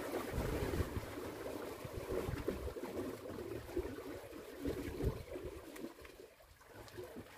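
Water splashing and lapping around a small fishing boat, with a few low knocks against the hull, dying down over the last second or two.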